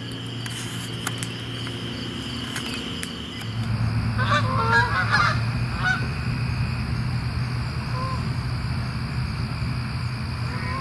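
Canada geese honking as they fly in, a cluster of calls about four to six seconds in and single honks later. Crickets chirp steadily for the first few seconds, and a low steady rumble comes in about three and a half seconds in.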